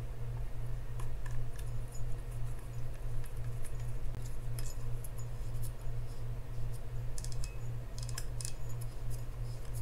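Scattered light clicks and ticks from a Penn Spinfisher 6500SS spinning reel as its spool and newly fitted drag knob are turned by hand to test the drag, over a steady low hum.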